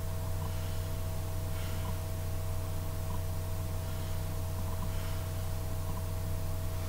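Steady low electrical hum with an even hiss and a couple of faint steady tones above it: room tone with no distinct event.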